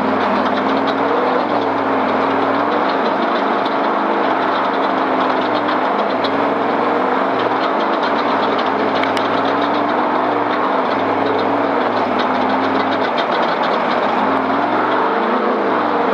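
Race vehicle's engine running steadily over rough ground, its pitch wavering up and down and rising briefly near the end, with constant small rattles.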